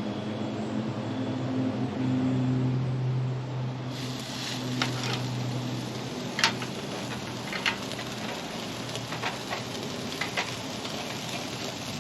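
Ribeye steak sizzling on a hot charcoal grill grate, with sharp pops and crackles of fat coming in from about four seconds in. A steady low hum runs underneath.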